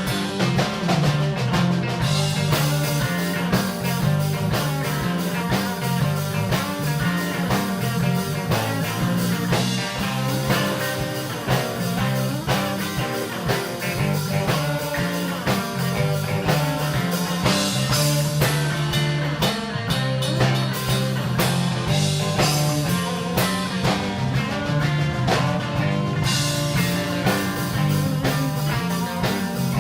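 Live blues band playing an instrumental passage: electric guitar over bass and a drum kit.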